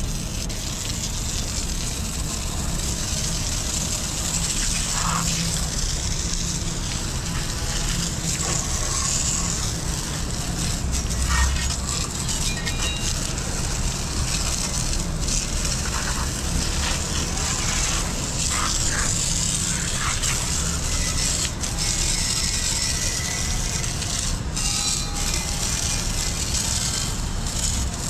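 Garden hose with a pistol-grip spray nozzle jetting water onto a wet teak deck: a steady hissing spray with splashing, over a steady low rumble.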